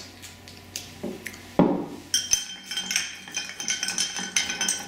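A knock about a second and a half in, then a bar spoon stirring ice cubes in a highball glass: a quick run of clinks with the glass ringing.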